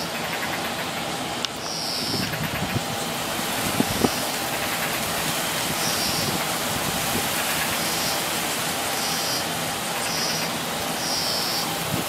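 Steady outdoor hiss and rumble, like distant traffic or wind, with short high chirps repeated every second or two.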